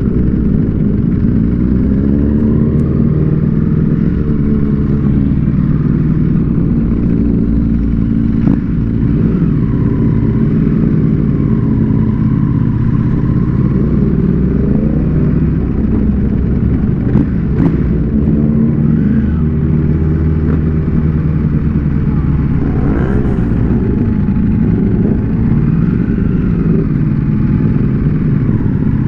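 Ducati Panigale V4 superbike with a Termignoni exhaust, heard from the rider's seat, accelerating and easing off through city traffic, its engine pitch rising and falling again and again. Other superbikes in the group ride close by.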